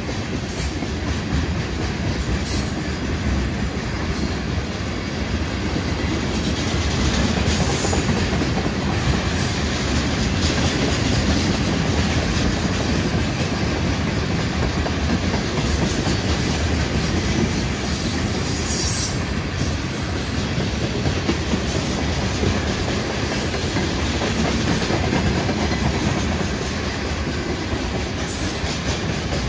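Freight train cars rolling past close by at speed: a steady rumble of steel wheels on the rails, with a few brief high-pitched wheel squeals along the way.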